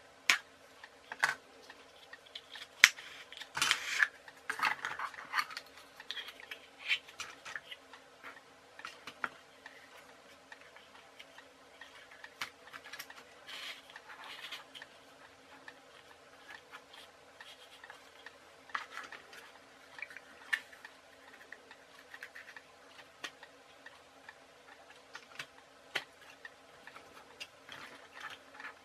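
Irregular light clicks, taps and short rustles of plastic bottle-top wheels and wooden barbecue-skewer axles being handled and pushed together, busiest in the first few seconds, over a faint steady hum.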